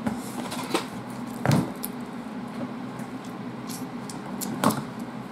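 Cardboard mailer box being handled and opened: scattered taps, scrapes and light knocks, the loudest a dull thump about a second and a half in and another near the end.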